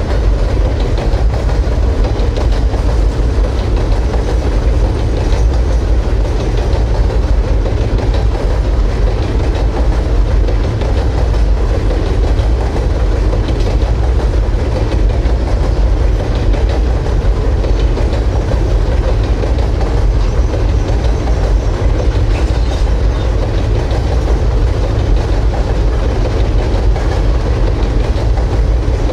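Coal train on the Cumberland Mine Railroad rolling past, a loud, steady low rumble of wheels on rail.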